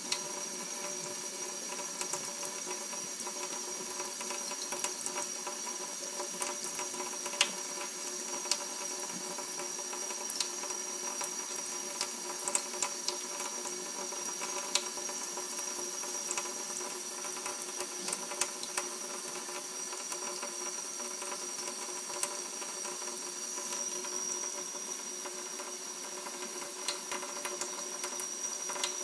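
Kitchen faucet running in a thin stream into a stainless steel sink: a steady hiss with a faint whine, dotted with small splashes and clicks.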